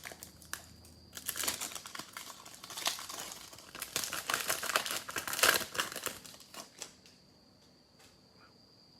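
Trading card pack handling: irregular crinkling and rustling of a foil pack wrapper and cards, stopping about seven seconds in, after which only a faint steady high whine remains.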